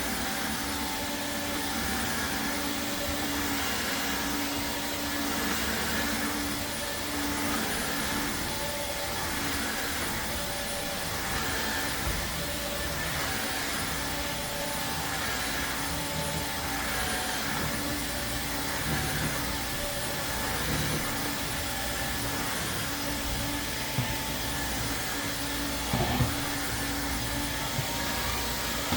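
Airthereal Vactide wet/dry vacuum running steadily, its motor giving a constant hum with a few steady tones over the airflow noise. A couple of light knocks come near the end.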